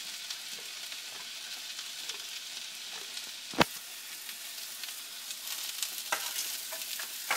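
Sliced boiled potatoes frying in butter fat in a pan: a steady sizzle, with one sharp click about three and a half seconds in and a few lighter clicks near the end.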